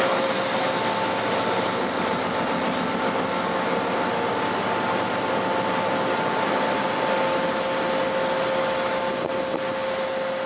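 Steady machinery noise of a ferry heard on its deck: engines and ventilation running with a steady two-note hum that comes in about half a second in, over a haze of wind and water. A short click at the very start.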